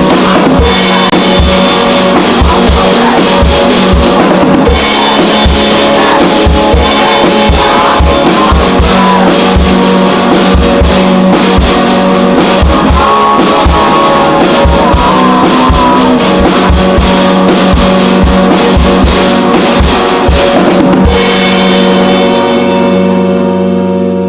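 Rock band cover with drum kit and guitar, a steady kick drum driving the beat. About three-quarters of the way through, the drums stop and a final chord rings on, fading away.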